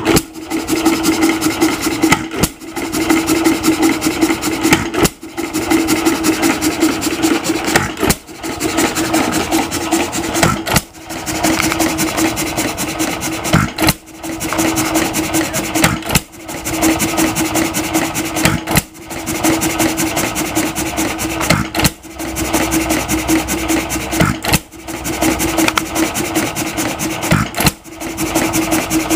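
1926 Nelson Brothers single-cylinder hit-and-miss gasoline engine running, a dense rapid clatter with a short lull about every two and a half to three seconds.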